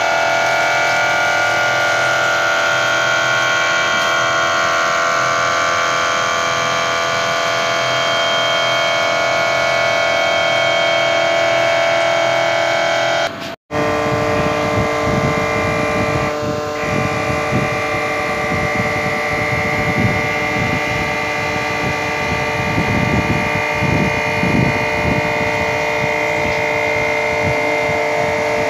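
A CNC milling machine's end mill cutting a metal mold core under flood coolant: a steady whine of spindle and cut. The sound breaks off for a moment about halfway, then resumes as a steady hum over a rougher, fluttering cutting noise.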